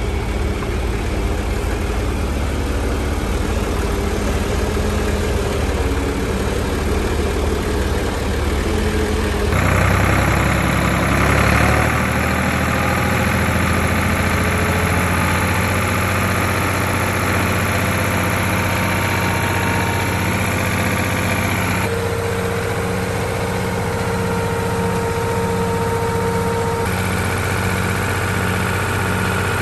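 A blue farm tractor's engine running steadily at idle, heard from the driver's seat.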